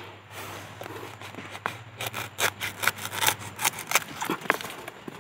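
Machete blade chopping and scraping at the base of a bamboo shoot in earth, a string of short sharp strokes, roughly two a second, starting about a second and a half in.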